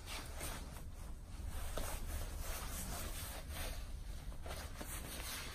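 Fabric and straps rustling as a camouflage bulletproof vest is lifted over the head and pulled on, over a steady low hum.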